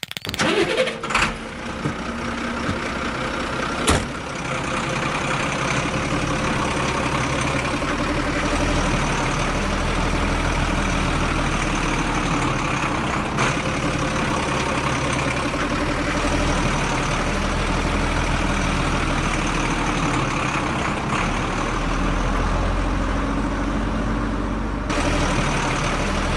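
A motor running steadily with a continuous mechanical drone, with a few sharp clicks in the first few seconds and one midway.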